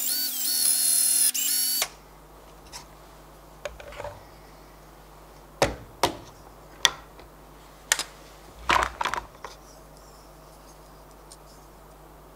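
Ryobi cordless drill running at full speed as the bit goes through the wood, a high whine that stops abruptly about two seconds in. Then a string of sharp knocks and clacks as the drill is put down and the quick-release clamps are undone.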